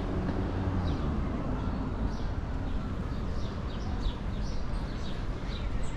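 Small birds chirping, short high notes several times a second that grow busier after the first couple of seconds, over a steady low street-traffic rumble. An engine hum under it fades out about a second in.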